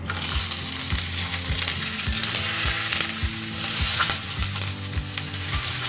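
Chopped onions sizzling as they hit hot oil in a kadhai, the frying hiss starting suddenly and staying steady while a spatula stirs them.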